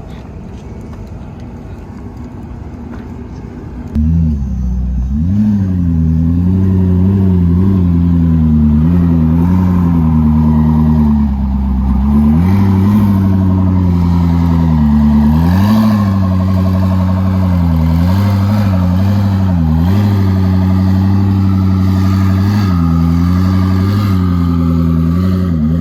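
Koenigsegg twin-turbo V8 idling, a steady low engine note that comes in suddenly about four seconds in over a quieter low rumble, its pitch wavering slightly every second or two.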